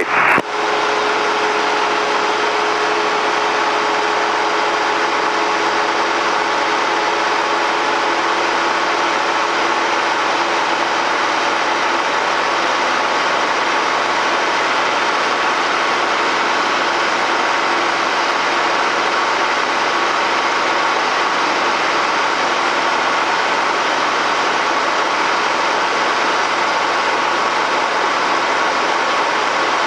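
Single-engine piston light aircraft's engine and propeller droning steadily, heard inside the cabin as an even roar with a few constant hum tones.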